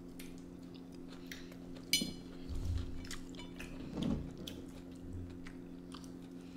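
Mealtime sounds: a metal fork clinks against a ceramic bowl about two seconds in with a brief ring, among scattered small cutlery clicks and soft chewing, over a steady low hum.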